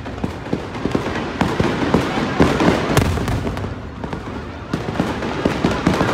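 Aerial fireworks shells bursting overhead in an irregular, continuous run of bangs and pops.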